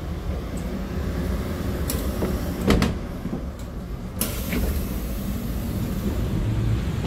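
Steady low hum inside a Chu-kuang express passenger coach, with two sharp knocks from the coach's sliding interior door and fittings about two seconds in. A steady hiss sets in suddenly about four seconds in.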